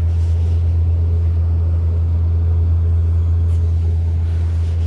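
Steady low rumble of a running motor vehicle, unchanging throughout.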